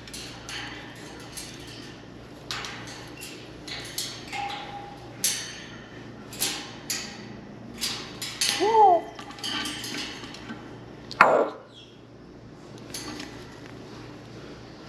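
An African grey parrot making a series of sharp clicks and taps, with a short wavering whistle about eight and a half seconds in and a quick, loud downward-swooping whistle about eleven seconds in.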